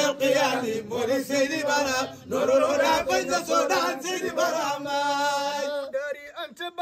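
A man chanting a Sufi devotional praise song, with long, wavering held notes.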